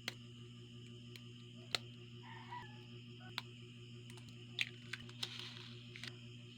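Scattered light clicks and taps, about a dozen at uneven intervals, over a steady low hum and a steady high-pitched drone.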